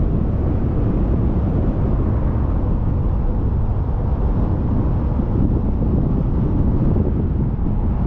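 Steady low rumble of a car on the move: road and wind noise with no distinct events.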